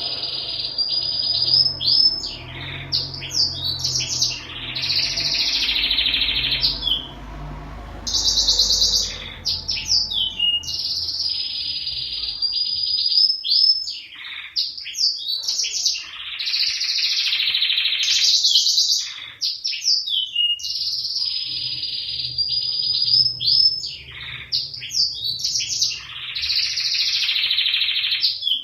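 Gloster canary singing: a long, continuous canary song of rapid trills and rolling phrases, broken by short pauses.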